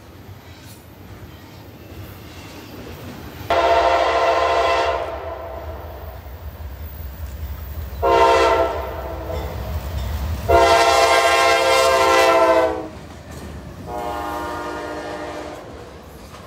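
CSX freight locomotive's air horn sounding a chord in the grade-crossing pattern, long, long, short, long, the last blast fainter, over the low rumble of the approaching train.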